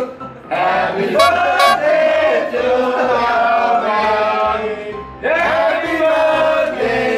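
Several voices singing a song together in sustained phrases, with a short pause about five seconds in.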